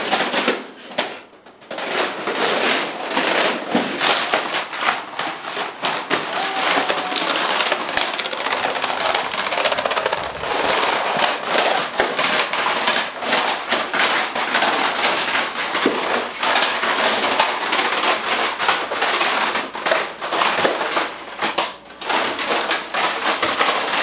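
VHS tapes, DVD cases and CD jewel cases falling in a domino chain: a rapid, continuous clatter of plastic cases knocking into each other and slapping onto a tile floor. It pauses briefly about a second in and dips again near the end.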